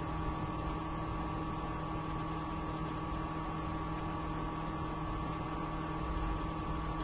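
A steady electrical hum with a faint hiss beneath it.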